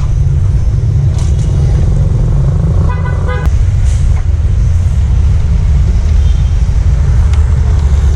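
Steady low rumble of road traffic and engines, with a vehicle horn sounding once, briefly, about three seconds in.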